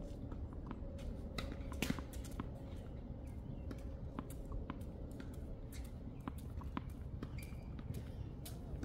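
Scattered light taps and clicks at irregular intervals, a few each second, over a steady low background rumble.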